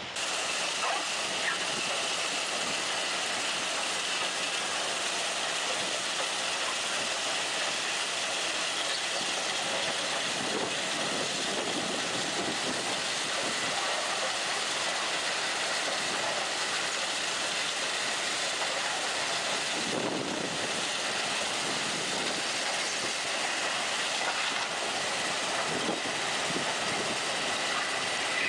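Rail-mounted ballast cleaning machinery working on the track: a steady, unbroken mechanical noise and hiss with a faint high whine running through it.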